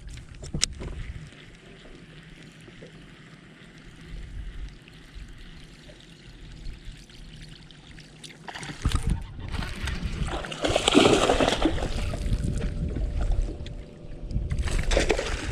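Water splashing and trickling: quiet at first, then loud from about eight and a half seconds in, loudest around eleven seconds.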